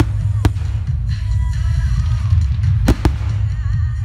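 Fireworks display: aerial shells and comets going off over a continuous low rumble, with a sharp bang about half a second in and two close together near the end. Music plays underneath.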